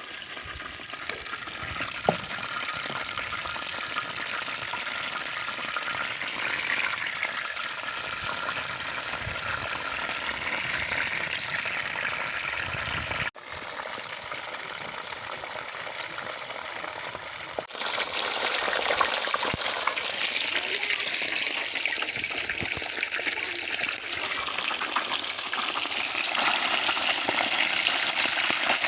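Fish frying in hot oil in a pan, a steady sizzle and crackle. It breaks off twice and grows louder after the second break, about 18 seconds in.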